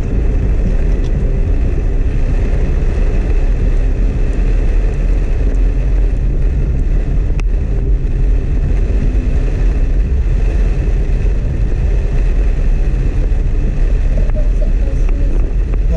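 Steady in-cabin rumble of a Suzuki S-Presso driving through heavy rain: engine and tyres on a wet road, with the hiss of rain on the car. A single sharp click about halfway through.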